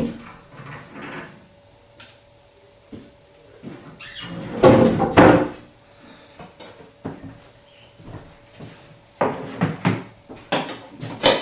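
Household knocks and clatters of cupboard doors and drawers being opened and shut, loudest about halfway through and again near the end, over a faint steady hum.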